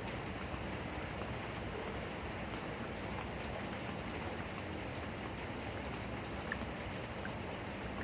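Heavy rain falling steadily, with a few individual drops ticking on a surface.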